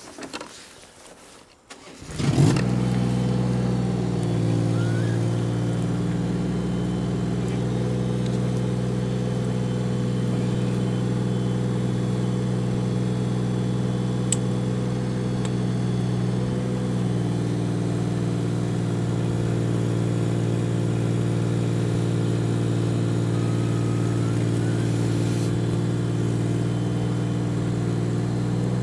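JCB mini excavator's diesel engine starting about two seconds in, then running steadily, its note shifting slightly a couple of times as the hydraulic arm lifts the fallen cross.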